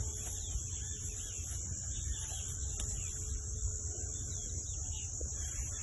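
Outdoor pasture ambience: a steady high-pitched hiss over a low rumble, with faint scattered chirps and no distinct event.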